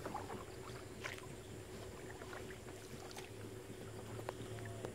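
Small boat's motor running low and steady as the boat glides along the river, with faint scattered chirps and ticks over it.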